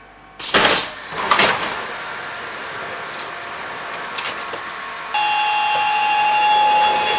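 Air-operated sliding doors of a Siemens-AEG Athens Metro Line 1 train working, with two loud bursts of air hiss and door noise in the first second and a half. A steady warning buzz starts about five seconds in, and more loud door and air noise begins near the end.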